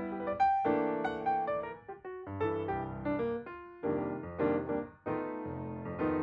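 Background piano music: separate notes and chords that each fade after striking, in phrases with short gaps between them.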